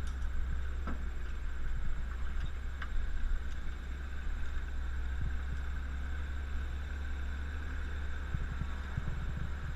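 Vintage Dodge Power Wagon running on a trail ride, a steady low engine drone with a few light knocks and rattles.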